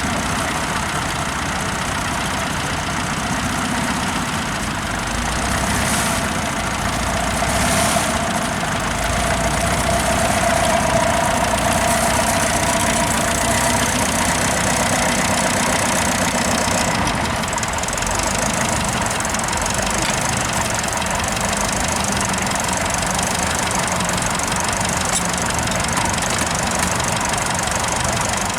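Tractor engine running steadily, with two brief louder knocks about six and eight seconds in.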